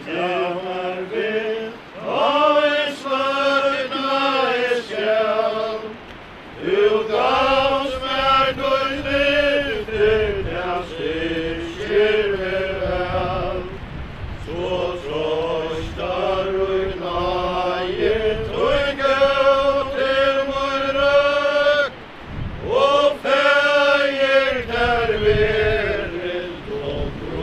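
Mourners singing a slow funeral hymn in unison without accompaniment, in long held notes, with brief pauses between the lines.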